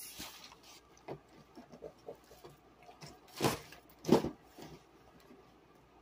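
Grocery packaging rustling and knocking as items are moved about on a table: scattered small handling sounds, with two louder brief rustles about three and a half and four seconds in.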